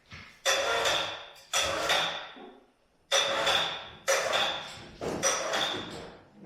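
Five sharp metal strikes about a second apart, each followed by a short metallic ring that dies away.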